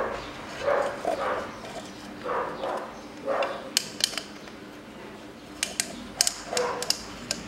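A dog barking several short times in the background, with sharp clicks of a screwdriver against the plastic oil-filter cap about four seconds in and again near the end.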